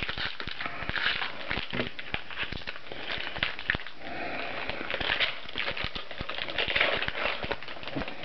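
Hockey card pack being torn open and its wrapper crinkled, with the cards handled: a steady run of crackles and small clicks.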